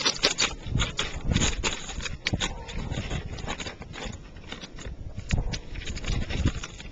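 Dog digging and pawing at an orange plastic ball in crusty snow, with its nose in the snow: an irregular run of crunches and scrapes.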